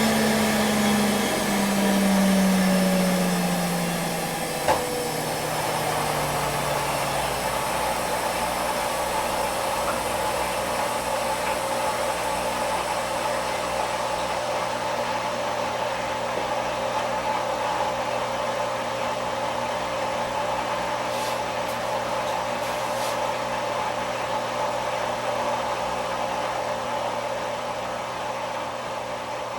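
Front-load washing machine coming down from its spin: the drum motor's whine falls steadily in pitch over the first several seconds, with a sharp click about five seconds in. A steady hum and hiss follows.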